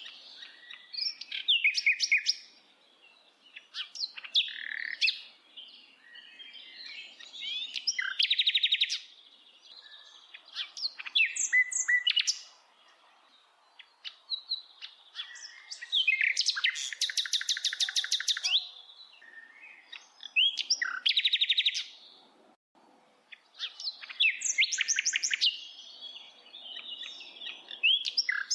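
A bird singing a varied song of chirps, sweeping whistles and fast trills, delivered in phrases a second or two long with short pauses between them. The longest phrase is a fast trill of rapidly repeated notes about halfway through.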